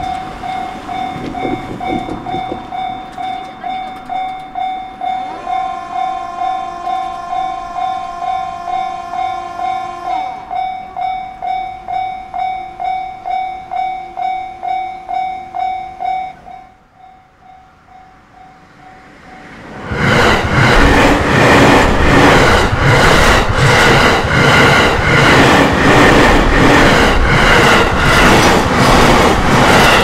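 Japanese level-crossing warning bell ringing about twice a second, with a train horn held for about five seconds partway through. The bell then fades, and from about two-thirds of the way in an electric commuter train passes loudly, its wheels clacking rhythmically over the rail joints.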